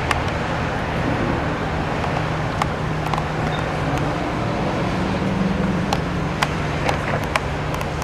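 Motorcade vehicles driving past on the street: steady engine and tyre noise with a low engine hum, and a few sharp clicks scattered through.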